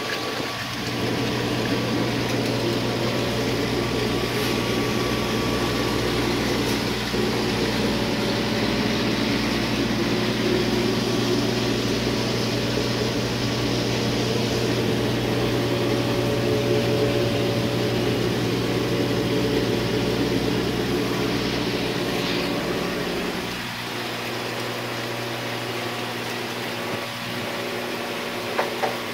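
The water pump of a hydroponic system humming steadily, with water splashing from the return pipe into the reservoir. The hum and splash drop away about three-quarters of the way through, and two short clicks follow near the end.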